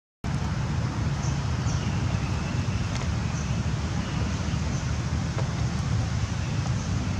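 Steady low outdoor rumble with an even hiss above it, cutting out for an instant at the very start. There are a few faint short high chirps in the middle.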